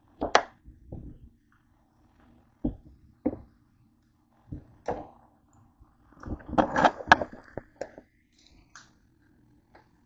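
A kitchen knife cutting through a peeled cantaloupe and knocking on the cutting board: separate knocks and taps a second or so apart, with a busier clatter of knocks about two-thirds of the way through.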